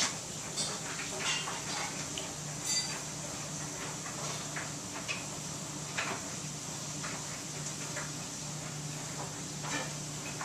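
Front-loading clothes dryer running: a steady low hum and airy hiss, with irregular light clinks and knocks from the load tumbling in the drum.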